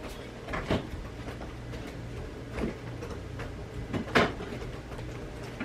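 A few short knocks and clunks of things being handled in a kitchen, one every second or two, the loudest a little past four seconds in, over a low steady hum.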